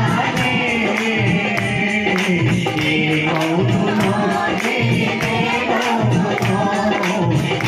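A man singing a worship song through a microphone, over music with a steady jingling beat about two times a second.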